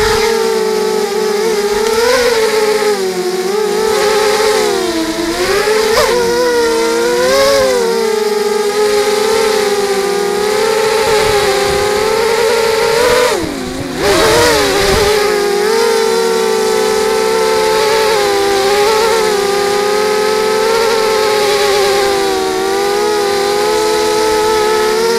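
QAV250 FPV quadcopter's four brushless motors and propellers whining, heard from the Mobius camera on board; the pitch wavers up and down with throttle changes. About halfway through the whine drops briefly in pitch and loudness, then climbs straight back up.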